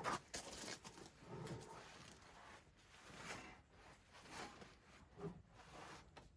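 Faint, scattered rustling and scraping with a few light knocks: hands-on work handling straps and parts around the engine.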